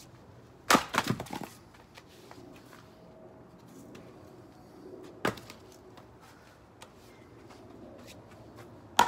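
Axe strikes splitting poplar rounds on a chopping block: three sharp blows, the first about a second in followed by a brief clatter of wood, one near the middle and one at the end.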